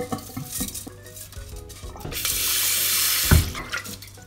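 Wet rice and rinse water poured from a metal bowl into a mesh strainer in a stainless steel sink. Small clicks and scrapes come first, then a rush of water for about a second from two seconds in, ending with a knock, the loudest sound.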